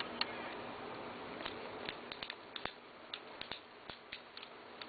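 Faint, irregular light clicks and taps, about a dozen scattered through, from small objects being handled.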